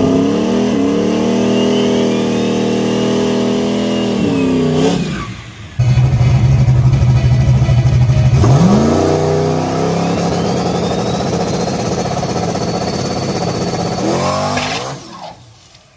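Turbocharged 5.3 LS V8 of a methanol-fuelled Fox-body Mustang drag car revving up and holding at a steady high pitch, as on a two-step launch limiter, while a thin rising turbo whistle builds. The engine drops off and revs up a second time about halfway through, holds for about five seconds, then falls away near the end.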